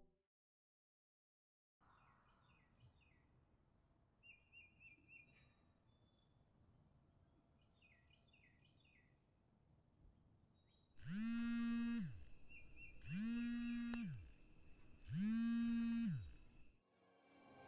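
Mobile phone vibrating for an incoming call: three buzzes about a second apart, each rising in pitch as the motor spins up and falling as it stops, over faint birdsong.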